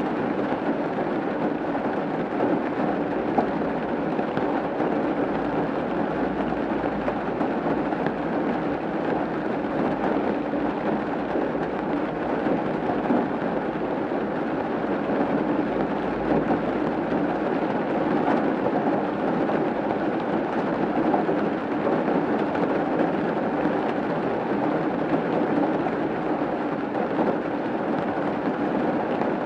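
Rain falling steadily on a roof, a dense even noise with no let-up. A faint low rumble sits underneath for several seconds in the middle.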